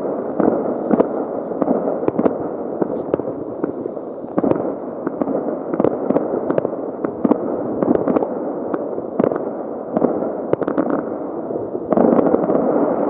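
Many distant fireworks and firecrackers going off at once, blending into a steady rumble with frequent sharp cracks. It swells louder about twelve seconds in.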